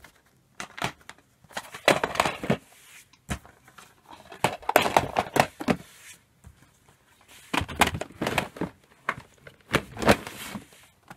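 Plastic DVD and Blu-ray cases clattering and sliding against each other as they are flicked through in a plastic storage drawer, in irregular bursts of rattling and clicks with short pauses between.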